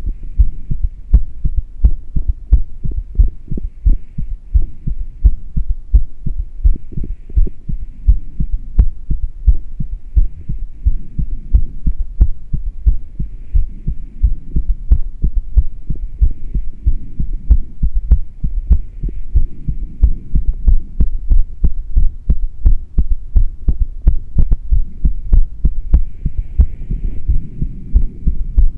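A human heartbeat recorded close up: a steady rhythm of low thumps, with the heart beating while the person rebreathes air from a plastic bag through a straw with no fresh air.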